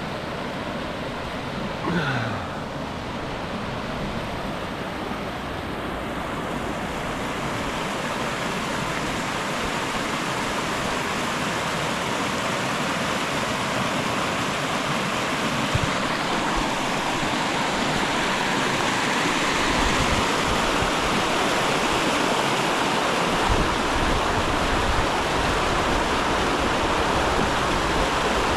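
Creek water rushing and splashing over rocks in a small rapid, a steady rush growing gradually louder. A brief falling tone sounds about two seconds in.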